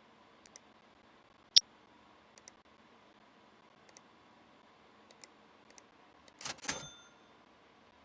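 Scattered small clicks and taps of PC hardware being handled, with one sharp click about a second and a half in and a short clatter near the end that rings briefly like metal.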